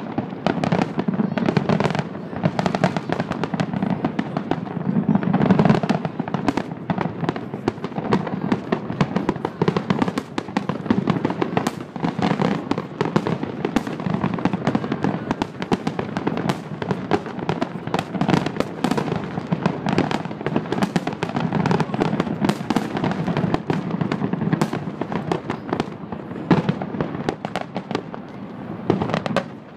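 Aerial fireworks display: a dense, continuous barrage of shell bursts, many bangs and crackles a second over a low rumble.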